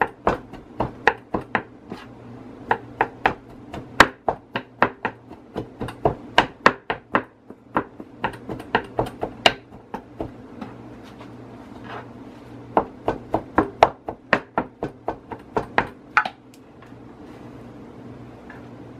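Large kitchen knife chopping toasted chicken on a wooden cutting board: a long run of quick knocks, about three a second, mincing the meat fine. The chopping stops near the end.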